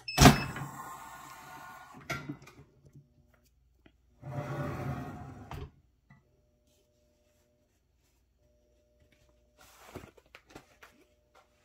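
Heat press opening after its press cycle: a loud sudden metal clunk with ringing that dies away over about two seconds, then a click. A second, longer rattling noise comes about four seconds in, and softer rustling comes near the end as the Teflon cover sheet is lifted off the shirt.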